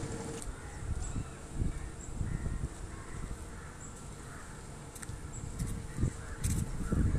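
Outdoor background with birds calling and a few low thumps, the loudest near the end.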